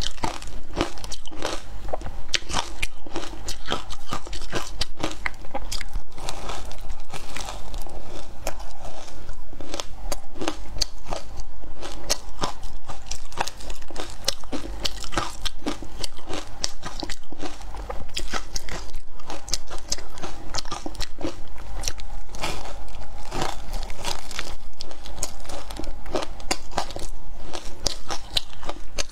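Frozen ice coated in matcha powder being bitten and chewed close to a clip-on microphone: a continuous run of sharp, crisp crunches and cracks, several a second, without pause.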